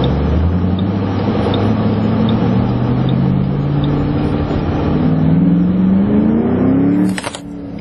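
2008 Ford Mustang's engine heard from inside the cabin, its pitch rising steadily as the car accelerates. About seven seconds in there is a click and the engine sound drops away briefly.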